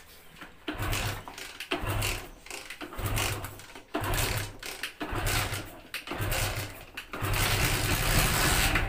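Hero Splendor Plus single-cylinder four-stroke engine being started over and over in short bursts about a second apart, then catching and running for nearly two seconds near the end. The engine starts but won't keep running: it shuts off right away, the starting fault being diagnosed.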